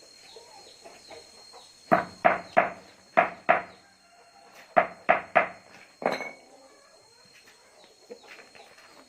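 Chicken clucking: about nine loud, short clucks in quick groups of two or three, a little over a second apart, starting about two seconds in and ending about six seconds in.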